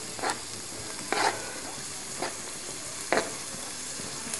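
Chopped onions frying in hot oil on a high flame: a steady sizzle, with four scrapes of a spoon through the pan, about one a second, as they are stirred.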